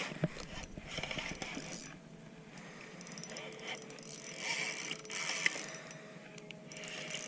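Spinning reel being cranked by hand against a hooked, fighting fish, its gears whirring and clicking in uneven spells.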